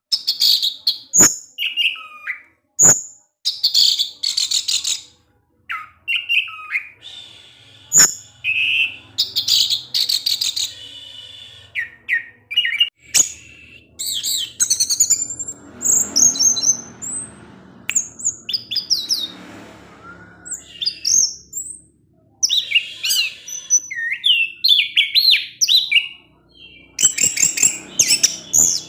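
Orange-headed thrush singing a long run of short, quick, high whistled phrases and sharp chip notes with brief gaps between them.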